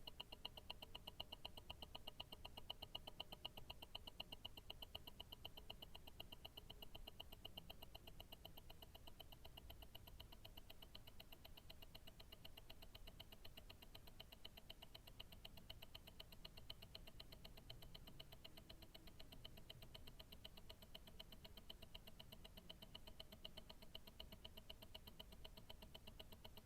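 Tourbillon watch movement's escapement ticking, heard through a stethoscope: a faint, rapid, perfectly even run of ticks, several a second, with no change.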